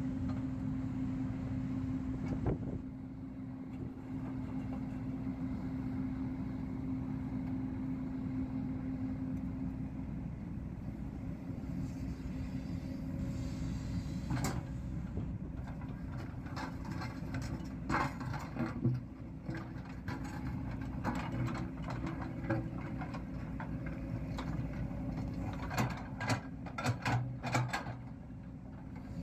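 JCB 205 excavator's diesel engine running steadily under digging load, with a steady hum through the first ten seconds or so. From about halfway on, the steel bucket scrapes and knocks against rock and stones in the trench, with a quick run of clanks near the end.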